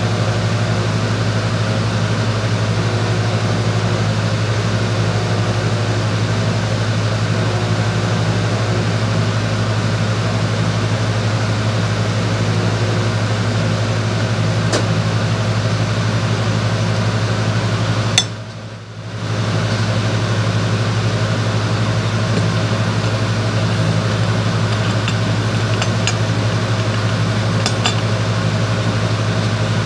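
A steady, loud machine hum with a strong low drone and a few steady higher tones, the constant background noise of a welding shop. It cuts out suddenly for about a second roughly two-thirds of the way through, and a few faint clicks sound near the end.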